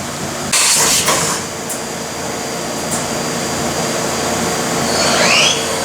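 Steady machine-shop hum with a short burst of hiss about half a second in and a brief rising whine near the end.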